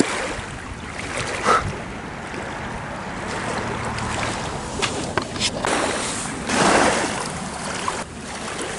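Small waves lapping and washing over a pebbly lakeshore, coming in swells, with wind.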